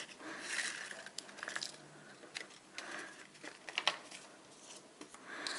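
Faint paper rustling with light ticks as a small kraft paper envelope is handled and opened and loose paper stamps and stickers are shaken out into a hand.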